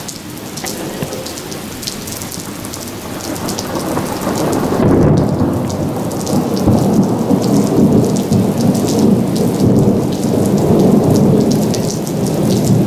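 Thunder rumbling over steady heavy rain. The rumble swells about four seconds in, rolls on loudly for several seconds and eases near the end, while close raindrops patter sharply throughout.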